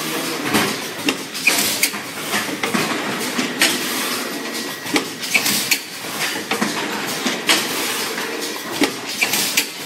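High-frequency blister-card welding and packaging machine running: a steady mechanical rush with irregular sharp metallic clicks and clanks, about one or two a second.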